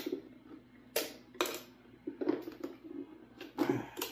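Sharp clicks and knocks of guitar pedals and cables being handled on a pedal board, one a little after a second in, another shortly after, and a cluster near the end.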